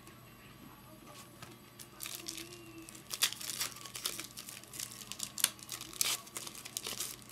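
A shiny foil 2008 Topps Chrome baseball card pack crinkling and being torn open by hand, a run of sharp crackles starting about two seconds in.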